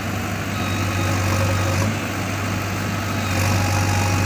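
Diesel engine of a JCB backhoe loader running steadily at a low, even speed.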